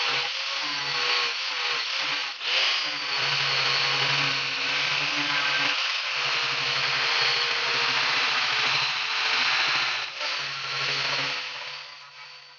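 Angle grinder grinding the edge of a steel axe head cut from an old circular saw blade: a steady, high grinding hiss over the motor's hum, briefly dipping twice and fading away near the end.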